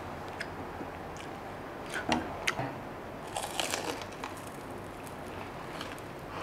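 Crunchy bites into crispy deep-fried pork belly: a few sharp crunches about two seconds in, then a cluster of crackling crunches a little later, followed by quieter chewing.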